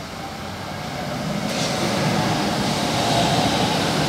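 São Paulo Metro Line 3 train running along the station platform: wheel-on-rail rumble with a steady motor whine, growing louder over the first two seconds.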